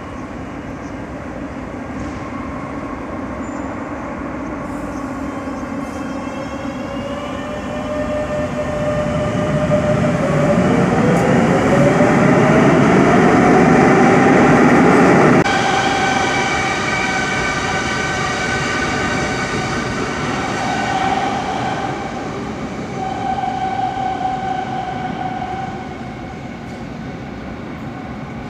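Madrid Metro electric train pulling out of the station: a rising electric whine as it accelerates over steady wheel-on-rail rumble, loudest about halfway through. The rumble drops off suddenly, leaving a fainter steady whine.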